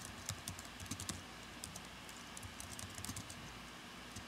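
Faint typing on a computer keyboard: quick runs of key clicks with short pauses, typing out a command line.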